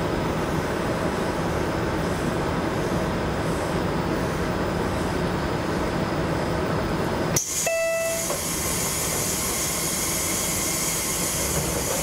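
Inside the cabin of a KiHa 66 diesel railcar, the engine idles steadily. About seven seconds in, a click and a brief tone sound, then a hiss of air as the pneumatic door engine works, and the double-leaf door shuts with a thud near the end.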